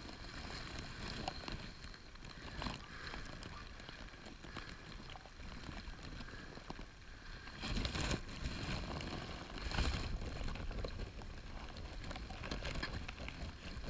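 Handling noise from a camera wrapped in a plastic bag: the plastic crinkles and rubs against the lens housing, with wind rumbling on the microphone. There are a couple of louder bumps about eight and ten seconds in.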